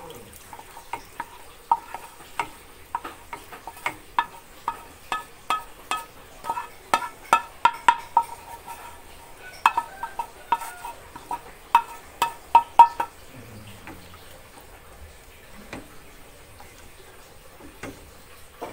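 A spatula scrapes and knocks fried spice paste out of a wok into a pot of broth: a run of sharp, ringing taps, about one or two a second, which stops about 13 seconds in.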